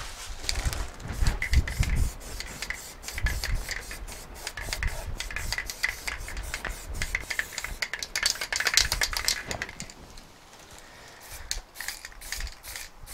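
Close-up rubbing and scuffing by hand on the filler-coated rear wheel arch of a car, with scattered knocks and a denser stretch of hiss in the middle.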